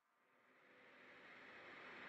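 Near silence in a break in the background music, with a faint hiss slowly swelling in.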